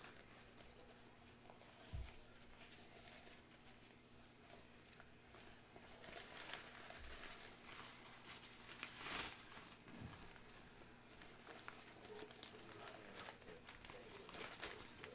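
Faint rustling of a black cloth drawstring bag as a mini hockey helmet is slowly slid out of it, with a couple of soft knocks.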